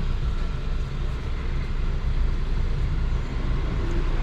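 Steady low mechanical hum in the background, even throughout.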